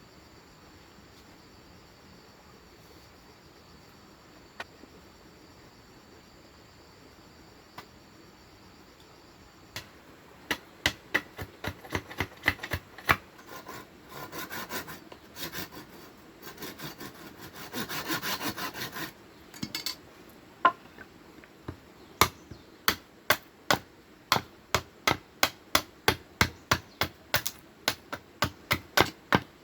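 Bamboo being worked by hand with a saw, in rapid rasping strokes that start about a third of the way in and run in quick regular strokes, two to three a second, near the end. Before that, only a steady high chirring of insects.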